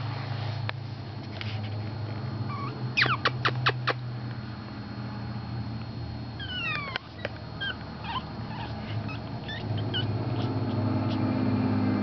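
Four-week-old Pekingese puppies squeaking and whimpering: a quick run of five high squeaks about three seconds in, then falling whines and short chirps, over a steady low hum.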